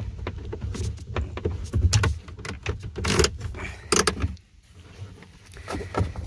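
Nylon webbing strap being pulled through the metal D-ring of a kayak seat: rustling and scraping with light clinks, with two louder scrapes about three and four seconds in.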